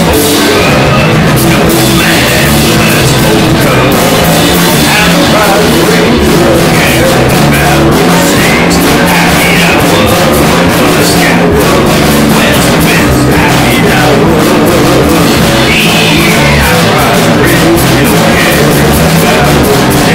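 Loud hard rock music, dense and steady.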